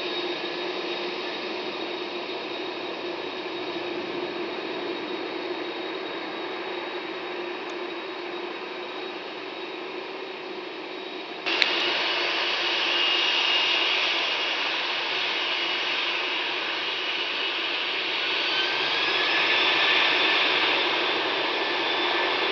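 Jet engines of an AirBridgeCargo Boeing 747-400 freighter running, a steady rushing noise with a high whine. About halfway through the sound suddenly gets louder, with a click. Near the end a whine rises as the engines spool up for takeoff.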